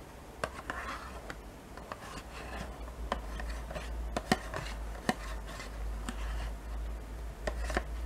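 Metal spoon scraping around the inside of a thin plastic yogurt cup, with a few sharp clicks as it knocks the plastic; the loudest clicks come a little past four seconds and about five seconds in.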